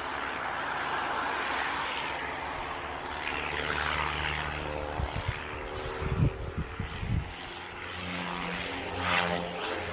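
Propeller aircraft engine running with a steady drone under a rushing noise, and a few short sharp knocks about five to seven seconds in.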